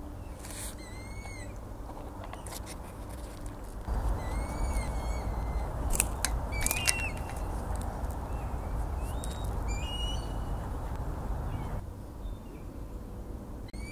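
Birds calling: short, arched high chirps in small groups, repeated every few seconds, over an outdoor hiss and low rumble that gets louder about four seconds in and drops back near the end. A few sharp clicks come in the middle.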